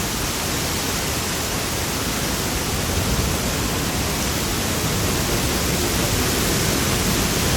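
Heavy rain, a steady even hiss of a downpour.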